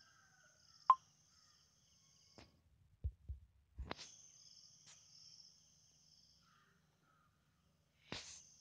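Faint insects chirring in a steady high-pitched trill that cuts out for about a second and a half near the middle, then resumes. A single sharp click about a second in is the loudest sound, and a few low handling thumps of the phone come around three seconds in.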